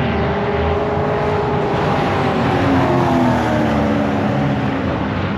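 Race car engine running hard on the circuit, getting louder to a peak about three seconds in and then easing away, its note falling as it passes.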